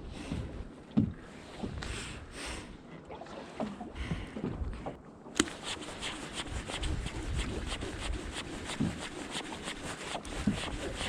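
Waves lapping and slapping against the hull of a small boat, irregular low knocks under a rushing hiss that turns abruptly brighter about halfway through.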